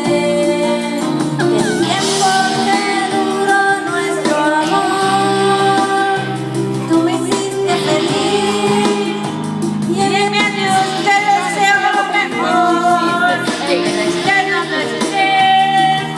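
Singing over a karaoke backing track, with long held notes in the melody.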